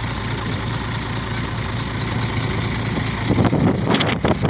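Hino EH700 six-cylinder diesel boat engine running steadily. In the last second, louder irregular sounds rise over the engine.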